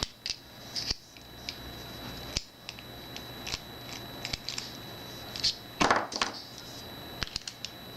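Small metallic clicks and taps of a cam-style plunger lock, its removable core and its keys being handled. A sharper knock comes about two and a half seconds in, and a cluster of clicks comes about six seconds in.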